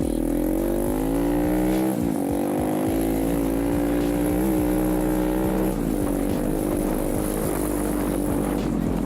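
Irbis TTR 125 pit bike's 125 cc four-stroke single-cylinder engine pulling under way, its revs climbing, falling off sharply about two seconds in and again near six seconds, and picking up again each time.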